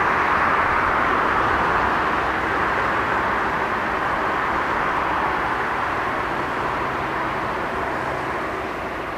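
Jet engines of a Boeing 767-300ER running at taxi power, a steady rushing noise that slowly grows fainter.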